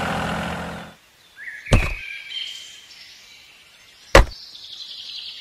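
A steady engine sound cuts off about a second in. It is followed by a quick rising whoosh that ends in a sharp knock, then a fainter sliding tone. Near the end comes a single sharp plastic click as the toy plough is hitched to the toy tractor.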